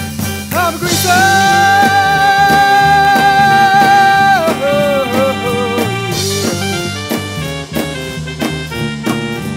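Upbeat band song with a drum kit. A voice slides up into one long high held note of about three seconds, then wavers down in pitch.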